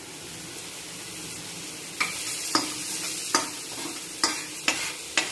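Chopped garlic sizzling in melted butter in a stainless-steel kadai. A steel spoon stirs it, clinking sharply against the pan about six times from around two seconds in.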